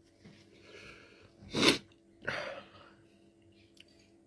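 A man sneezes once, sharply and loudly, about a second and a half in, with quick breaths before and after. The sneeze is set off by the heat of the Carolina Reaper chilli peppers he is eating.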